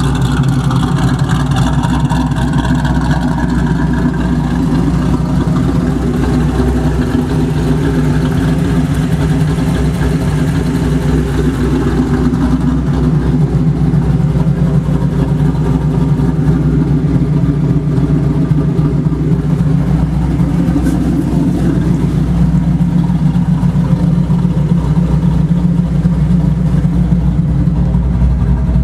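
1999 Mustang GT's 4.6-litre V8 running steadily at idle, with a tapping whose cause the owner has not found.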